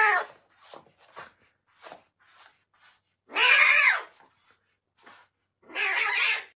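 A tabby kitten meowing: one loud meow falling in pitch right at the start, another about three and a half seconds in and a third near the end, with a few short faint calls between them.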